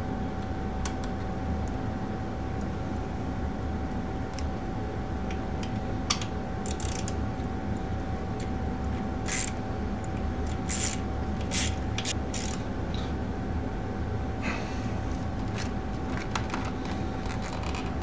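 Small ratchet wrench clicking in short spells as the motorcycle's battery terminal bolts are tightened, mixed with scattered clicks and rustles of wiring being handled, over a steady hum.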